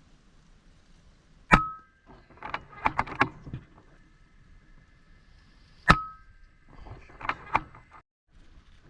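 Two air rifle shots about four seconds apart, each a sharp crack with a brief ring. Each is followed about a second later by a quick run of clicks from working the rifle's action to load the next pellet.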